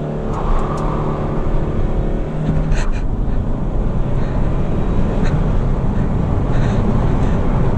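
Chevrolet Cruze diesel engine heard from inside the cabin as the car sets off and drives under load: a steady engine tone for the first couple of seconds, a sharp click about three seconds in, then a louder, rougher run mixed with road noise.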